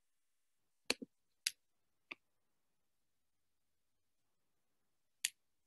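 Computer mouse clicking: a quick double click about a second in, two single clicks over the next second, and one more near the end, with near silence between.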